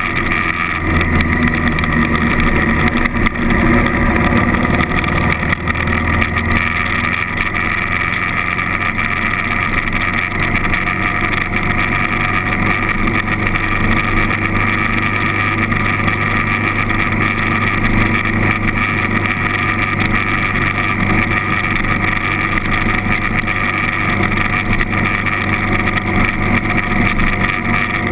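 Honda CRF1000L Africa Twin's parallel-twin engine running steadily at cruising speed on the road, with wind rush over the microphone.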